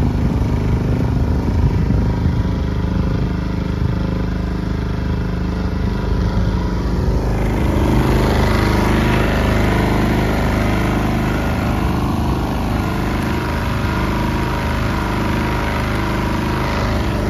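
Small boat's outboard motor running steadily while the boat is under way, growing a little louder and rougher about eight seconds in.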